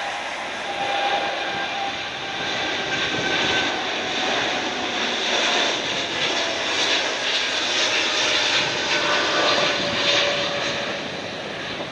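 Boeing 787 jetliner's twin turbofan engines at takeoff power as it climbs out after liftoff: a steady, loud jet noise with faint engine tones that slowly drift down in pitch.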